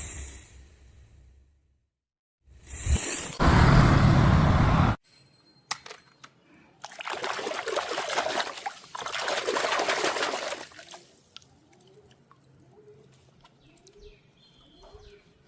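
Water pouring and splashing in several separate bursts with short breaks between them, the loudest about three to five seconds in and a longer stretch in the middle, then only faint sounds near the end.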